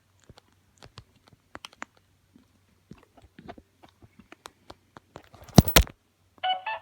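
Light plastic clicks and taps as the animatronic toy bear's plastic parts are handled, with two sharp clacks about five and a half seconds in. The toy's song starts playing just at the end.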